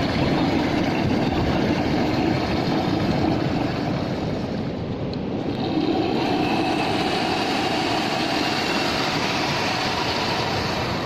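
Sea-driven blowhole in the shore rocks: air and spray forced out through the hole as the water surges in. It makes a loud, continuous rushing hiss that swells twice.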